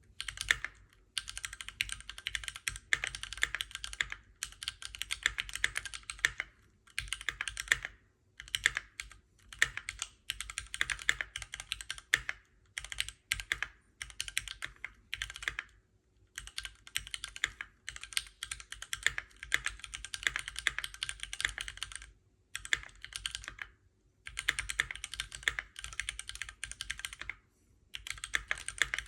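Typing on a Keychron Q1 all-metal mechanical keyboard: fast runs of key clacks in bursts of a second or two, broken by short pauses.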